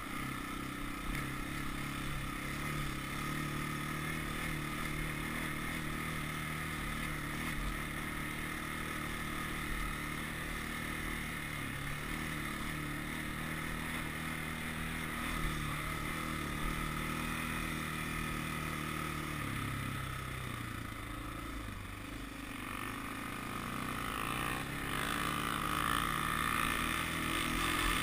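Honda 400EX sport quad's single-cylinder four-stroke engine running steadily under way, its pitch stepping up and down with the throttle. It eases off a little past the middle, then picks up and gets louder near the end.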